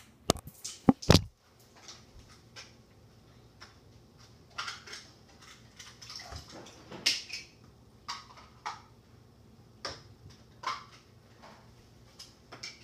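Several loud knocks and thumps close to the microphone in the first second or so, then scattered faint clicks and clinks through the rest.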